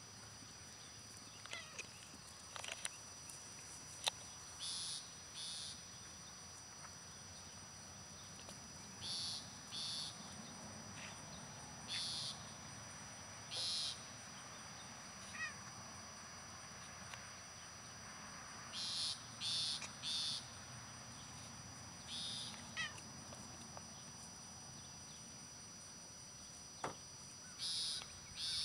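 Faint outdoor insect calls: short, raspy, high-pitched calls about half a second long, often in pairs a little under a second apart, repeating every few seconds over a steady high thin whine.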